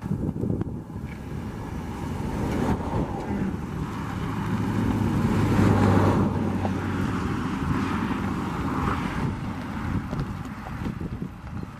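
Ford F150 pickup's 3.5L V6 gas engine running, its hum swelling toward the middle and easing off again, with wind buffeting the microphone.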